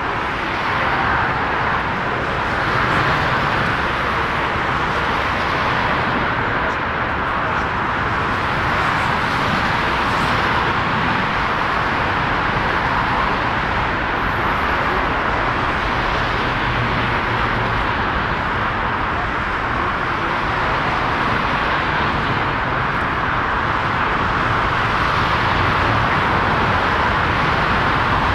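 Airliner jet engines at taxi power across an airport apron: a steady, even rushing hiss that holds the same level throughout.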